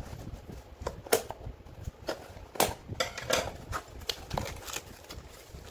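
Scissors cutting through packing tape and a cardboard box in irregular snips and scrapes, then the cardboard flaps being pulled open and plastic packing handled.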